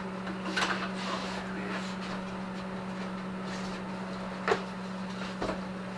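A few short knocks and clatters of gear being handled in a workshop, the loudest about four and a half seconds in, over a steady low hum.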